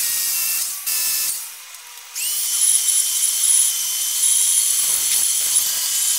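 Compressed-air blow gun hissing in short blasts, clearing concrete dust out of a drilled anchor hole. About two seconds in, a shop vacuum starts with a rising whine and runs steadily, sucking dust from the hole.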